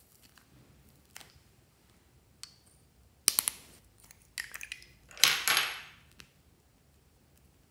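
Small hard plastic lipstick tubes clicking and rattling as they are handled and uncapped. A sharp click comes about three seconds in and a few more follow, then a brief rasping slide lasts about a second.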